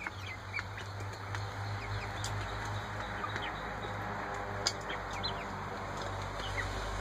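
Eight-week-old Ameraucana chickens giving short, soft peeps while feeding, with scattered sharp taps of beaks pecking in a metal feed bowl, over a low steady hum.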